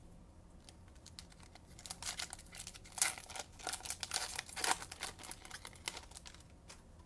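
A pack of Bowman baseball cards being torn open and handled: wrapper crinkling and tearing with light clicks of the cards, busiest through the middle few seconds.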